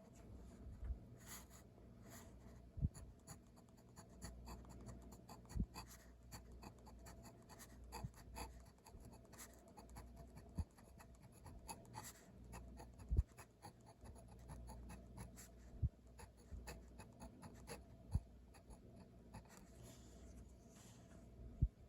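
Handwriting on paper: a pen scratching and ticking through short strokes, with a dull low knock every two to three seconds.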